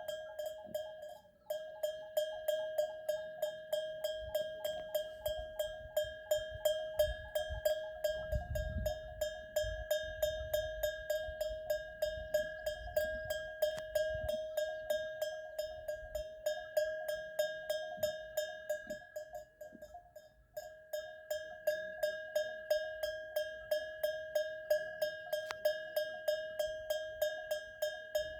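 A bell hung on a goat's neck clanking over and over in a quick, steady jingle, a few strikes a second, pausing briefly twice.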